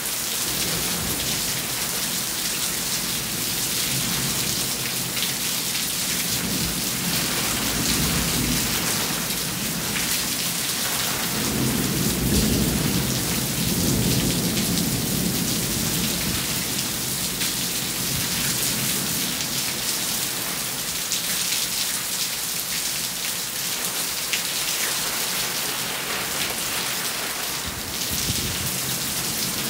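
Steady rain falling through a thunderstorm. A low roll of thunder swells up about halfway through and fades over several seconds, after a fainter rumble a little before it.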